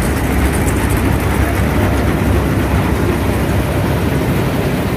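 Combine harvester running stationary with its threshing mechanism and straw walkers engaged at full working speed: a loud, steady mechanical rumble that does not change.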